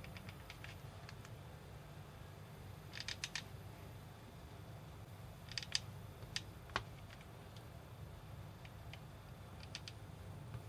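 Faint, scattered clicks and short clusters of ticks as a hot glue gun is worked against plastic mesh being glued over a trimmer router's air vent, over a low steady hum.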